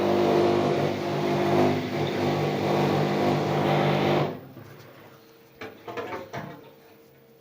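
LG F1296WDS front-loading washing machine running with a loud, steady hum and a vibration from its right side panel, which the owner takes for a panel that is loosely fastened; it does the same with the drum empty. The sound cuts off abruptly about four seconds in, followed by a few faint knocks.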